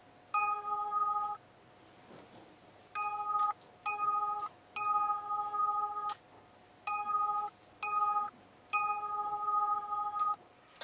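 A synthesized note triggered by a single-key MIDI pedal prototype: the same pitch sounds seven times, each held from about half a second to a second and a half as the key is pressed and released.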